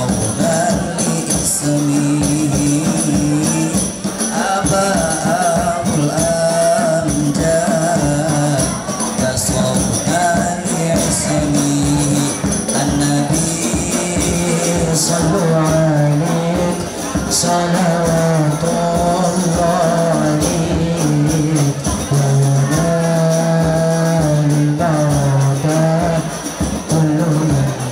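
Male voices singing an Islamic sholawat with long, wavering held notes, over rebana frame drums beating a steady rhythm.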